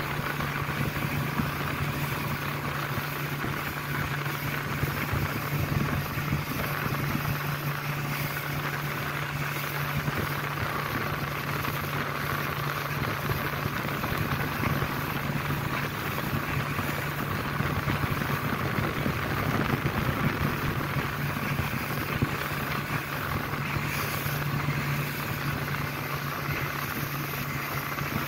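Suzuki outboard motor running steadily at speed under the load of towing a banana boat, with the rush of water and spray along the hull.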